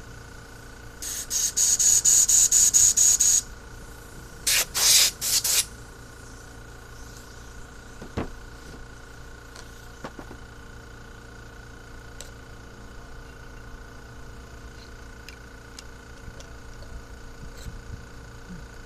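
Compressed-air blow gun fired in quick hissing bursts into the passages of a Holley four-barrel carburetor, to check them for clogs: a rapid run of about eight short blasts, then three more a second later. A few faint clicks follow.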